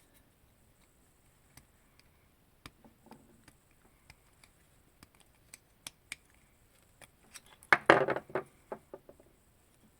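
Small metal parts clicking as they are handled, with a louder, brief clatter about eight seconds in.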